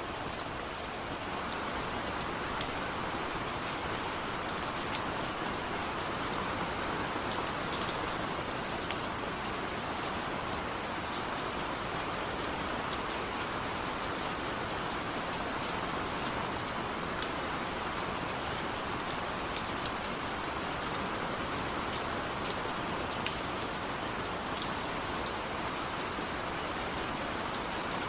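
Steady rain falling, with scattered sharp drip ticks of individual drops.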